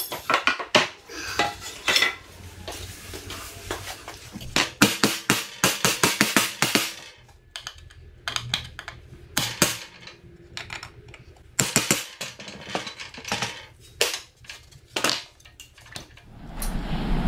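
Sharp metallic knocks and clinks of hand tools working old pallet wood, in quick runs of strikes: a pry bar prising pallet planks apart, and a hammer striking a nail punch to drive out the old nails.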